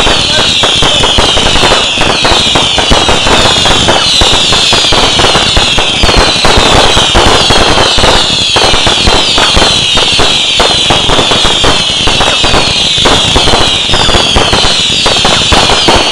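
Fireworks display: a loud, unbroken barrage of rapid bangs and crackles, with many overlapping whistles that fall in pitch.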